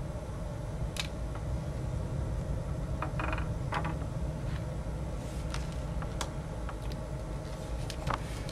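Scattered small clicks and a brief scraping rattle about three seconds in, from a screwdriver and small screws being worked on a MacBook's case, over a steady low hum.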